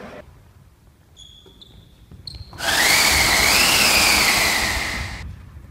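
A loud whirring hiss with a whine that rises, wavers and then holds, lasting about two and a half seconds before cutting off suddenly. A few short, faint beeps come before it.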